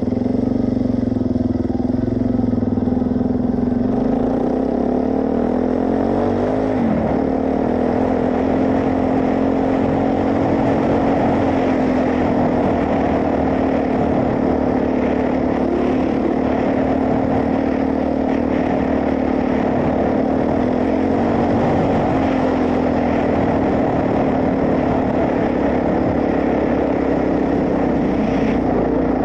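Suzuki DR-Z400S single-cylinder four-stroke engine running under way, its revs climbing about five to seven seconds in, then holding fairly steady with small rises and falls.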